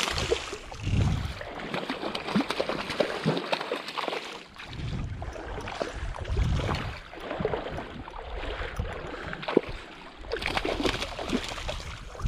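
Salmon splashing and thrashing in shallow creek water on the end of a fly line: irregular splashes and sloshing throughout.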